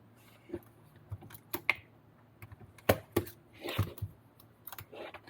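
Irregular light clicks and taps of a small hex driver, set screws and plastic kit parts being picked up and handled.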